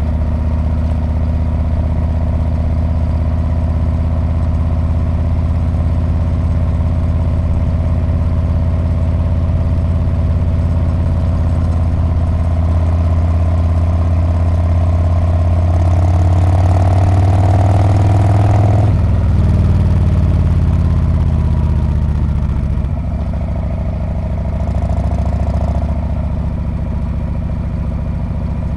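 Harley-Davidson Street Bob V-twin running under way through its exhaust, the engine note climbing slowly. About two-thirds of the way through the revs drop sharply. It then runs at a lower note, with a short swell of throttle near the end.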